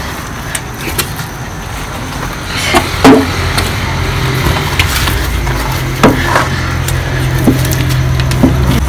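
Wooden pestle pounding and turning steaming cassava fufu (akpu) in a wooden mortar, giving a few irregular knocks, two of them louder. Under it runs a steady low motor-like rumble that grows louder after about four seconds.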